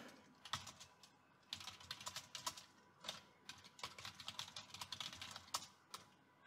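Typing on a computer keyboard: quiet runs of quick keystrokes with short pauses between them.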